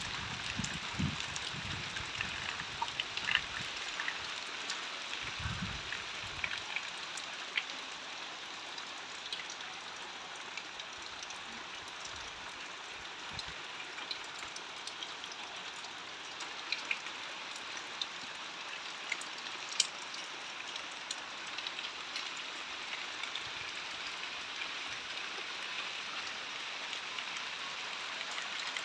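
Steady monsoon rain falling, with scattered louder drops ticking on nearby surfaces. A few low thumps come in the first six seconds.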